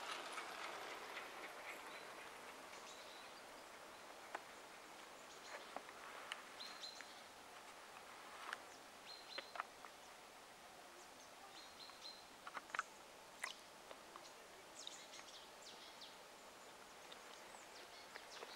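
Faint outdoor ambience with short bird chirps now and then and a few sharp clicks. A soft rushing noise fades away over the first few seconds.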